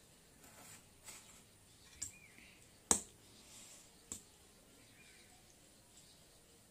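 Metal fork clinking and scraping against a stainless steel plate while twirling noodles: a few sharp separate clicks, the loudest about three seconds in.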